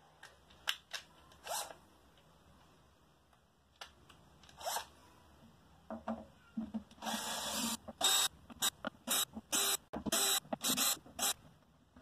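Cordless drill-driver undoing the screws on the handle of a combo amp cabinet: a few handling clicks, then one longer run of the motor followed by a quick string of short bursts.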